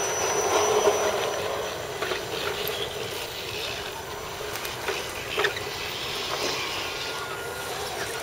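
Electric motors and gear drives of radio-controlled scale crawler trucks whirring as they drive past one after another, loudest about a second in as one passes close. Short clicks and ticks from the trucks over the trail, the sharpest about five and a half seconds in.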